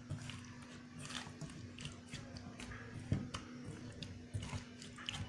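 Potato slices being mixed by hand in thick gram-flour (besan) batter in a steel bowl: irregular soft squelches and clicks, one louder near three seconds in.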